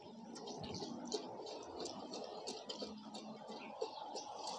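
Water draining out of the end of a removed tractor silencer onto concrete: a faint trickle with many small ticking drips and splashes. The water is flushing carbon out of the choked silencer, the cause of the tractor's black smoke.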